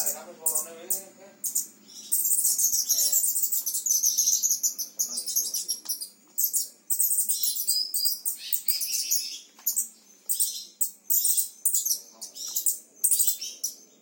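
Songbirds chirping and twittering in rapid, very high-pitched bursts, almost without pause.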